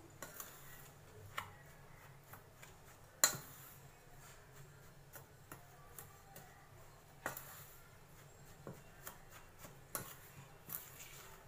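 A spoon clinks and scrapes against a stainless steel bowl while stirring powdered sugar into mawa. It makes irregular clicks over a soft rubbing sound, and the sharpest click comes about three seconds in.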